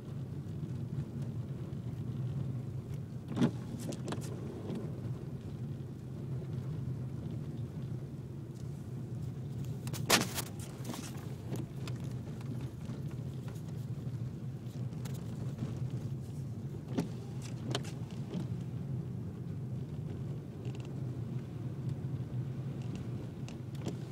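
Volkswagen Jetta driving through snow: a steady low engine and road drone, broken by a few short, sharp knocks, the loudest about ten seconds in.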